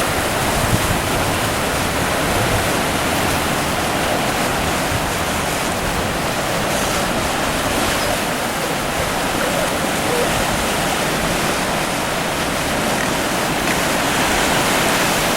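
Ocean surf washing on the beach, a steady even rush with no breaks.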